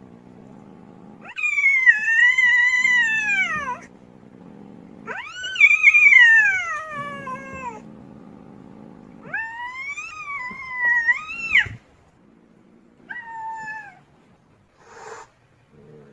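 Female cat wailing in long drawn-out yowls: three long calls, each sliding down in pitch at the end, then a short call and a brief noisy sound near the end.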